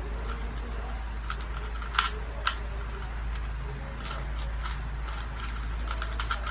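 Plastic Rubik's cube being twisted by hand: scattered clicks of the layers turning, with two louder clacks about two seconds in and a quick run of clicks near the end, over a steady low hum.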